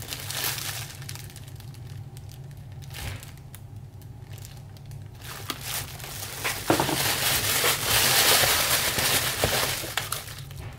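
Crumpled foil insulated packaging liner and the plastic inside it being rummaged through by hand. It crinkles sparsely at first, then crinkles loudly and continuously for about three seconds from around two-thirds of the way in.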